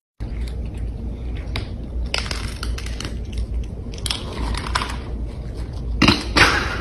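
Cats crunching dry kibble from a bowl: a close, dense run of chewing crunches, with louder flurries about two, four and six seconds in.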